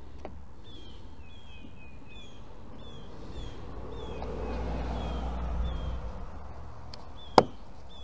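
Birds chirp with short, falling chirps repeating every half second or so, and a low rumble swells and fades in the middle. Near the end comes a single sharp click: the plastic tweeter cover on the mirror corner of a 2009 Hyundai Elantra's front door snapping into place.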